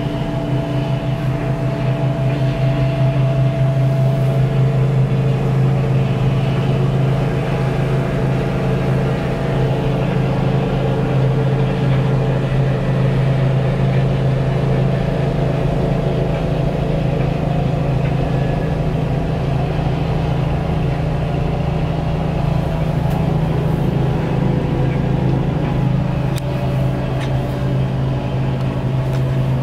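Steady low hum and running noise inside a moving cable-car gondola cabin, with a few constant whining tones over it and a faint scatter of light clicks near the end.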